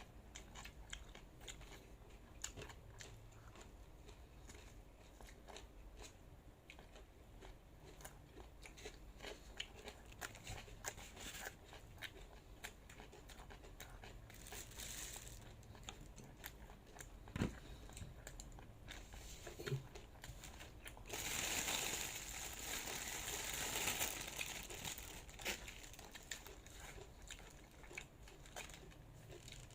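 Close-miked eating sounds: many small wet clicks of chewing and biting. A louder stretch of crinkling and crunching noise lasts about four seconds, past the middle.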